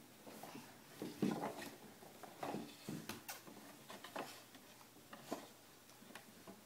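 Faint, scattered knocks and clatter of a wooden baby push walker as it is pushed along a hardwood floor.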